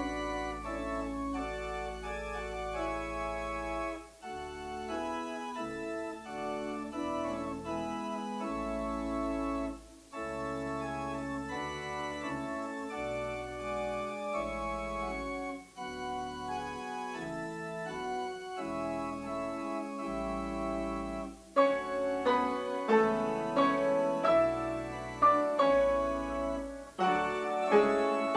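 Church organ playing the postlude: long held chords over deep pedal bass notes. A bit over three-quarters of the way in, louder struck notes with sharp attacks that quickly die away come in over the organ, as a piano joins.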